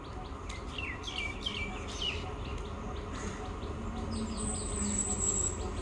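Birds chirping, a quick run of short falling chirps in the first two seconds and a thin high tone about four seconds in, over a faint low rumble from an approaching electric local train (EMU).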